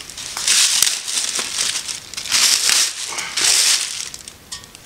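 Plastic wrapping crinkling in three loud bursts as it is pulled off a drill press base.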